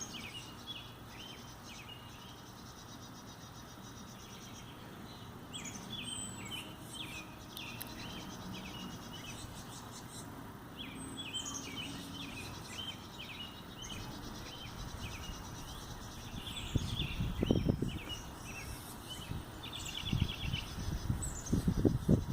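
Small bird chirping over and over in short clusters of quick high notes. A few louder low rumbling thumps come in near the end.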